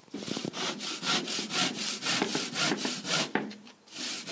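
Handsaw sawing through a sheet of plasterboard with quick back-and-forth strokes, about four a second, breaking off briefly near the end and then starting again.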